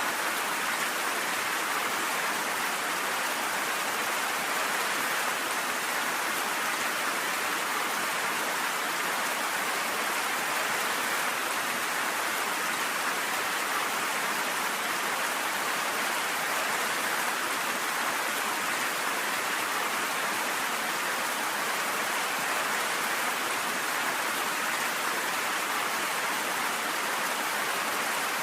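Steady, even rain with no thunder.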